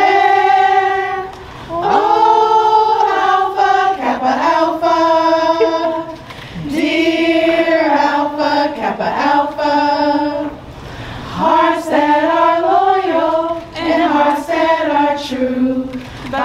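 A group of women singing an Alpha Kappa Alpha sorority song a cappella in long, slow held notes, with short breaks between phrases.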